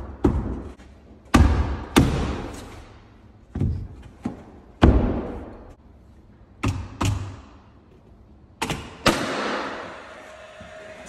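Cordless finish nailer firing about ten times at uneven intervals, some shots in quick pairs, nailing wooden window casing to the wall. Each shot is a sharp crack with a short ringing decay.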